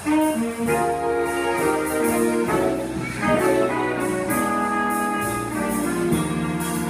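Jazz big band playing live: the saxophone and brass sections sound full sustained chords over a rhythm section, with a cymbal keeping time in steady strokes.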